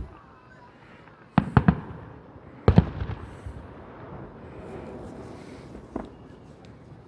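Aerial fireworks bursting: a quick run of three sharp bangs about a second and a half in, then the loudest bang near three seconds with a long echoing tail, and one more, smaller bang about six seconds in.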